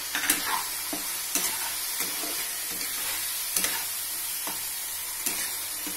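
Tomato-spice masala sizzling in a karahi as boiled chana dal is stirred into it with a metal spatula, the spatula scraping the pan in several irregular strokes.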